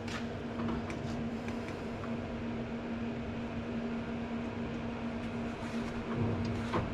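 A steady machine hum with a single held tone, with a few light clicks and knocks over it.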